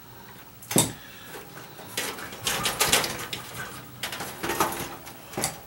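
Metal clicks and scrapes as a screwdriver works a small screw out of a stainless-steel toaster's housing and the toaster is handled, with a sharp click about a second in.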